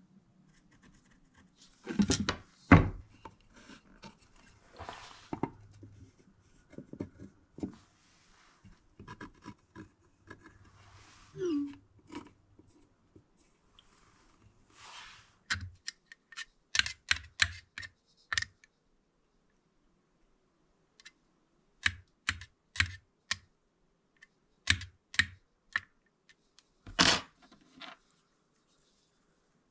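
Hand tools and wooden box parts being handled on a wooden workbench: scattered knocks and clicks, the loudest about two seconds in and near the end, with short scratchy stretches between.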